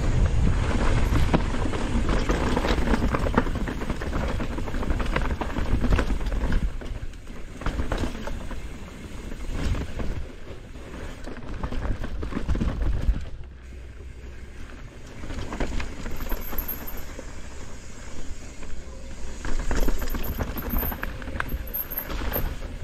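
Mountain bike descending a bike-park trail: tyres rumbling over dirt and rock, with a steady clatter of chain, frame and suspension. It is loudest for the first dozen seconds and quieter after a drop about halfway through.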